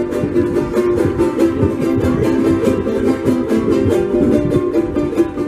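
Music: quick, even strumming on plucked string instruments with a pitched melody line over it.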